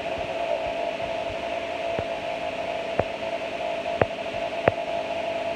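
A steady droning hum over a hiss. From about two seconds in, sharp clicks or knocks come roughly once a second.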